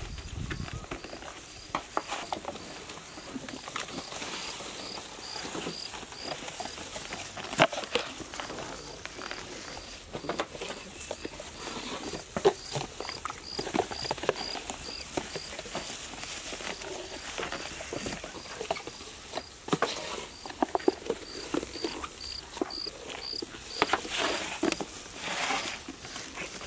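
Plastic takeaway containers and lids clattering and clicking as they are handled, filled and set on a metal tray, with an insect chirping steadily, high and faint, about two chirps a second.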